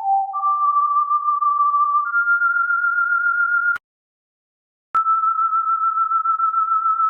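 A single pure electronic tone with a wavering loudness, held at steady pitches that step upward twice in the first few seconds. It cuts out abruptly to silence for about a second just before the middle, then comes back at a steady high pitch.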